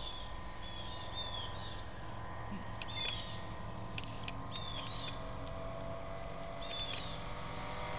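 Distant light aircraft engine humming steadily as the homebuilt experimental plane flies in, with a bird chirping repeatedly in short high calls.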